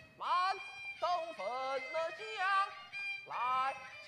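Peking opera music: a bowed fiddle plays short phrases of sliding, ornamented notes with brief breaks between them.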